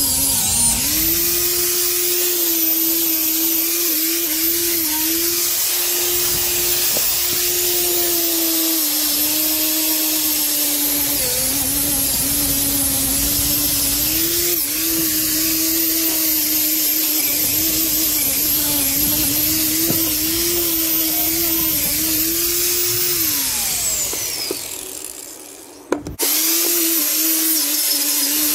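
Corded electric angle grinder working rusty iron on an old trolley, its motor pitch dipping and recovering as it is pressed into the metal. Near the end it winds down; then, after a sharp click, it is running again.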